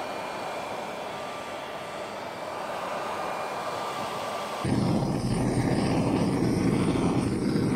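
Heat gun blowing steadily with a faint whine, too little heat to shrink the heavy heat-shrink tubing. About four and a half seconds in it cuts to the louder, lower rush of a blow torch flame.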